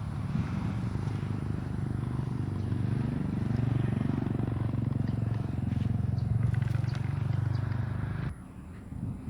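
A small engine running steadily nearby, its pitch and loudness swelling a little in the middle, then cutting off suddenly about eight seconds in.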